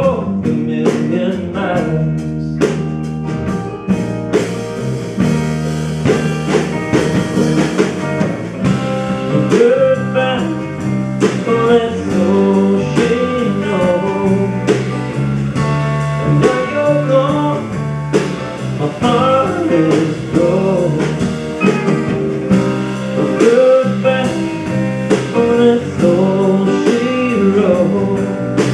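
Live country-blues band playing an instrumental break: an electric guitar lead with bending notes over strummed acoustic guitar, electric bass and drum kit.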